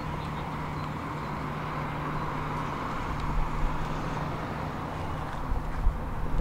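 Tram running along the track: a steady rolling noise over a constant electrical hum, with the low rumble growing and a few light knocks in the second half.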